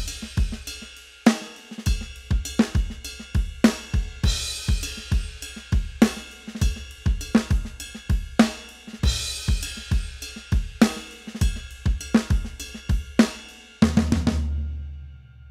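Background music with a steady drum-kit beat of kick, snare and cymbals, ending on a final hit with a low note that rings out near the end.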